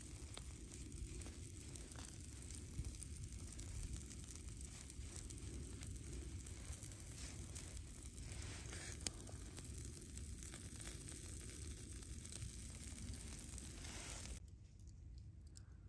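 Soft handling sounds of grilled corn rounds being slid off a wooden skewer and set down on a wooden cutting board, with a few light clicks over a steady low rumble.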